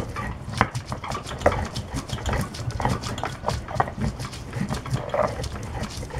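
Stone pestle grinding chilies on a flat stone mortar, with quick, irregular knocks and rasps of stone on stone.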